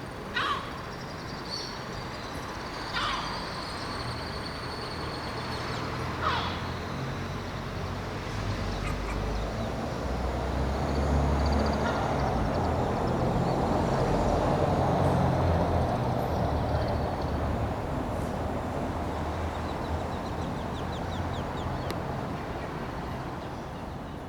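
Three short bird calls, each falling in pitch, within the first six seconds, over a steady low mechanical rumble. The rumble grows louder through the middle and then fades.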